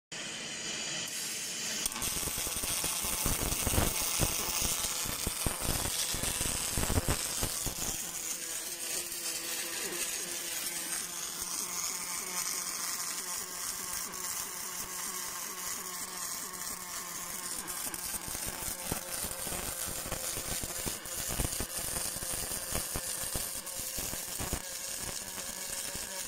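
MIG welding arc fed with 0.8 mm wire, crackling steadily as an automatic welding machine lays a weld around an oil port on a steel tube.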